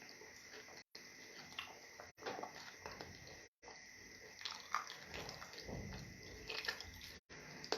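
Wet chewing and lip-smacking of someone eating fufu with stew: irregular small clicks and squelches close to the microphone.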